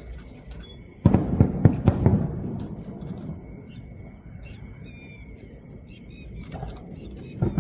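Aerial fireworks bursting: a quick volley of booms about a second in that fades into a rolling rumble, then another bang near the end.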